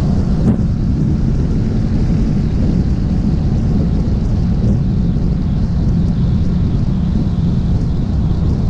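Motorcycle cruising at steady highway speed: a loud, even low rumble of engine, tyres and wind rushing over the bike-mounted camera, without gear changes or revving.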